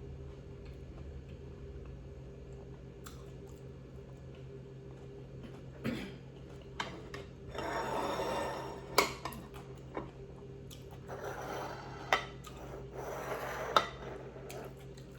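A low steady hum, then from about six seconds in a few sharp clinks and short scraping, rustling stretches of dishes and utensils being handled during a meal.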